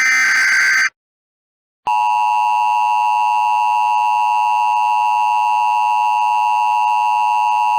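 Emergency Alert System tones: the last SAME header data burst, a buzzy warbling chirp lasting under a second, then about a second of silence, then the EAS attention signal, a steady two-tone sound of 853 and 960 Hz held without a break, announcing a civil emergency message.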